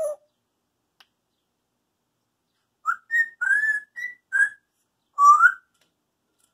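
African grey parrot whistling: a run of short whistled notes starting about three seconds in, ending with a longer rising whistle.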